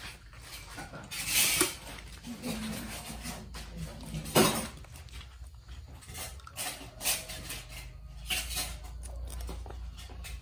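Spoons and chopsticks clinking against bowls during a meal: scattered, irregular clinks, with one louder knock about four seconds in.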